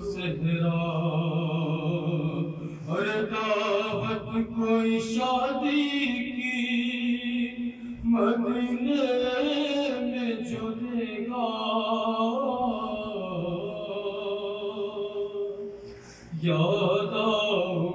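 A man singing a Shia devotional kalam (salam) in Urdu, solo into a microphone, drawing out long ornamented notes in slow phrases. Near the end he pauses briefly for breath, then starts a new phrase loudly.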